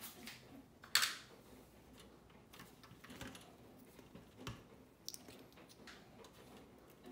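Scattered small clicks and knocks from hands handling a bass amp's chassis and front-panel controls, with one sharp click about a second in.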